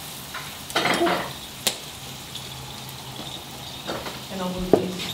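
Meat frying and sizzling over an open wood fire, with a few sharp clicks and knocks, the loudest near the end.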